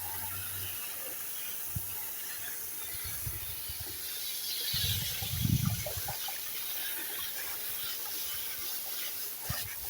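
Water spraying in a steady hiss while an air conditioner's coils are rinsed clean. A brief low rumble comes about five seconds in.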